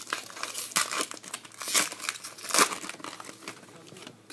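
Baseball card pack wrapper being torn open and crinkled in the hands, irregular crackly rustling that thins out near the end.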